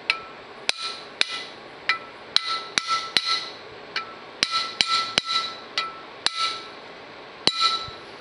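Hammer tapping a soft-metal punch to drive a new bushing into a John Deere 4400 combine's center traction drive pulley: about sixteen light, irregularly spaced metallic taps, each with a short ring.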